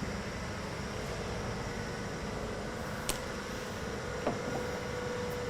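Steady low background hum with two small sharp clicks, about three seconds and four seconds in, from parts being handled.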